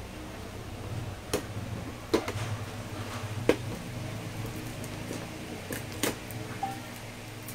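Clear plastic wrapping on a figure box being pulled and peeled by hand, giving about half a dozen sharp crinkles and crackles spread through the stretch, over a steady low hum.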